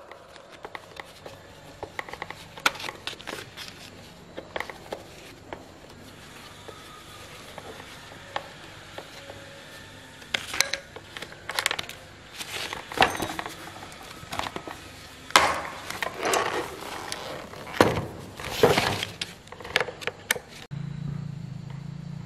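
Hand-tool work on a chainsaw: light metal clicks and taps as a screw is worked out of the saw's handle with a T-handle screwdriver, then louder irregular scraping and rustling as parts are handled on a woven plastic sack.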